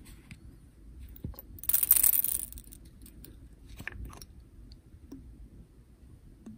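Plastic model-kit parts being worked with small hobby tools: a short rasping scrape lasting about a second, about two seconds in, is the loudest sound, with scattered light clicks and taps around it.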